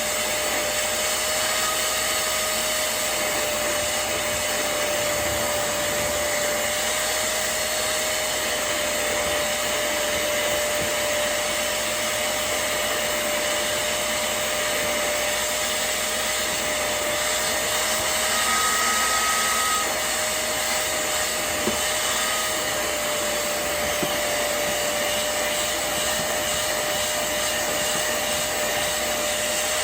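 Hoover CleanSlate portable spot cleaner's suction motor running steadily, with a constant whine over its rushing air noise.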